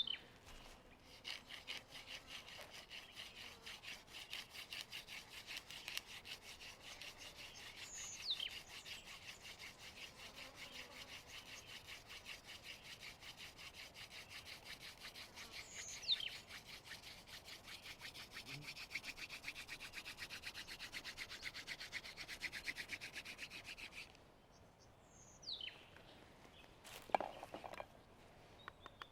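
A flint flake scraping and carving a starter hole into a silver wattle hand-drill hearth board. The strokes are quick and back-and-forth, and they stop about 24 seconds in. A bird's short falling whistle comes roughly every eight seconds.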